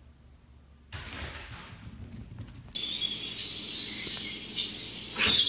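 High-pitched bird chirping that starts about three seconds in, after a brief stretch of hiss.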